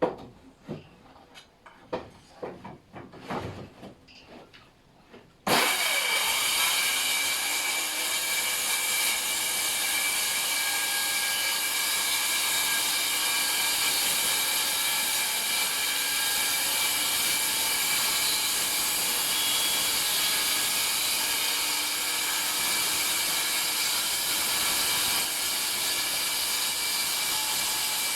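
Handheld circular saw cutting sheet plywood freehand. It starts suddenly about five and a half seconds in and runs steadily with a whine through the rest. Before that there are a few light knocks of handling.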